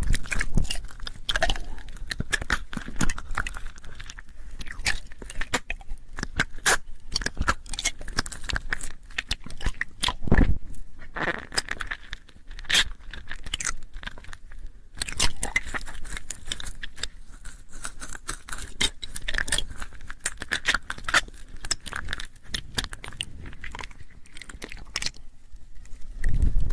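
ASMR mouth sounds: a dense, continuous run of small clicks and smacks. A louder, deeper one comes about ten seconds in and another near the end.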